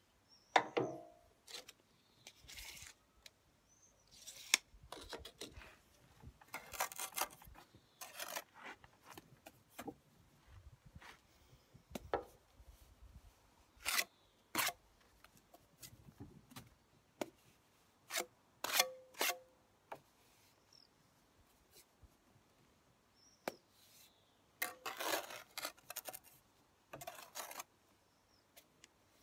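Steel trowel and pointing tool scraping wet mortar off the trowel and into brick joints, in short rasping strokes with sharp taps and clicks between them.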